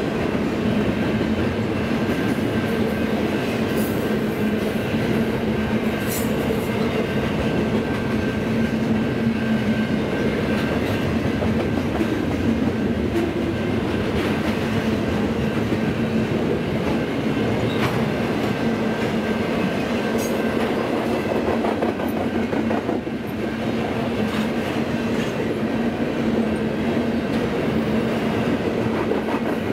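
Double-stack intermodal freight train's well cars rolling past: a steady rumble and clatter of steel wheels on rail, with a steady hum and a few sharp clanks.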